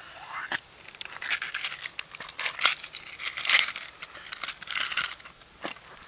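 Small aluminium screw-top tins of a VSSL container being handled: irregular light metallic clicks, scrapes and rustling, with a sharper knock about three and a half seconds in.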